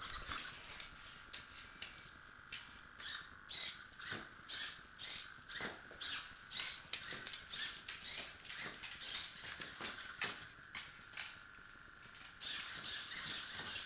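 Hobby servos of a homemade six-legged walking robot whining steadily as it walks, with its feet tapping on a tile floor about twice a second.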